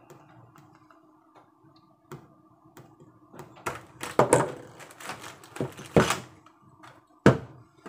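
Plastic clicks and knocks of an action camera in its clear housing and its plastic mounts being handled and set down on a tabletop, sparse at first, then several sharp ones in the second half. A faint steady hum lies under it.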